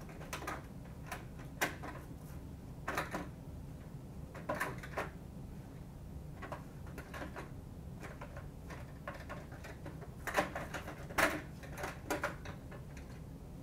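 Irregular plastic clicks and knocks as the ratchet suspension's keys are pulled up out of their slots in a blast helmet's plastic shell, the loudest about ten seconds in, over a low steady hum.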